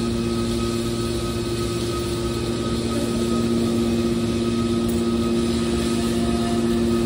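Hydraulic power unit of a scrap metal baler running steadily, unloaded: an even machine hum with two steady low tones and a fainter higher one over a noisy rumble.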